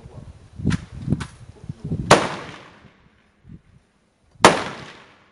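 Military bolt-action rifles firing on a covered firing line: two fainter sharp reports about a second in, then two loud shots about two and a half seconds apart, each with a long echoing tail.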